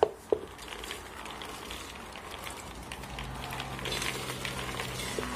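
Soaked beans being pushed by hand off a plate into a metal pressure cooker pot: two sharp knocks of the plate against the pot near the start, then a continuous soft rattle of beans sliding and falling in, growing a little louder toward the end.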